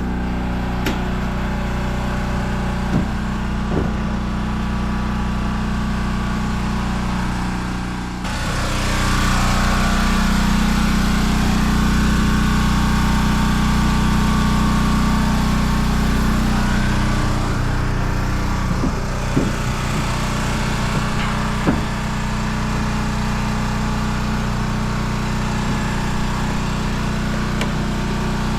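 Engine of the oil pump-out rig running steadily while oil is drained from the tank through hoses. About eight seconds in, a rushing hiss joins it and eases off around seventeen seconds, with a few light knocks.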